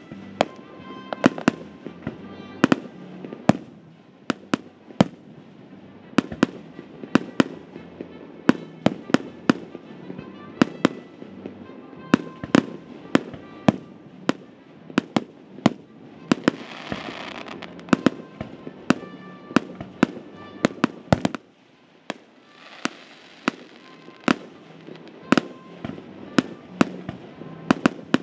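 Aerial firework shells bursting in quick succession: a steady string of sharp bangs, about two a second, with a short lull about three-quarters of the way through and two stretches of hissing crackle past the middle.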